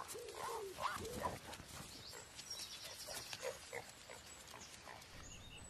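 Faint short animal calls that rise and fall in pitch, several in the first second and a half and then fainter. A high, thin bird trill comes in about halfway through.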